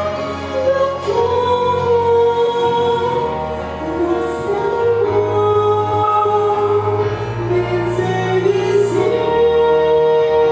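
Music: a Christian song, with voices holding long notes over instrumental accompaniment.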